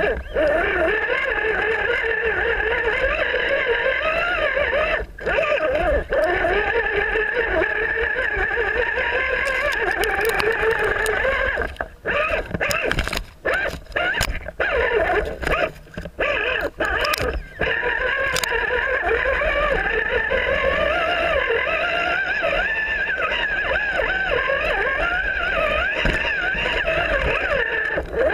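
Electric motor and gear whine of an RC rock crawler, rising and falling in pitch as it climbs over rocks. The throttle is let off and back on several times in quick succession about halfway through.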